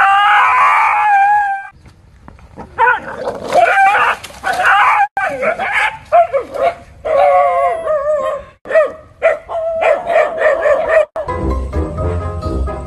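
A dog howling and barking in a run of wavering, pitch-bending calls, with music taking over near the end.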